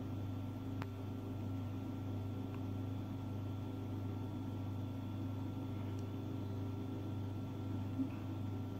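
Steady low hum of an appliance or fan in a small room, with a couple of faint clicks.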